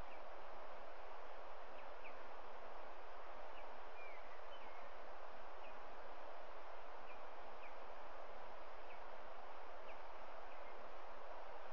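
Short, high bird chirps repeating irregularly, about one or two a second, over a steady outdoor hiss.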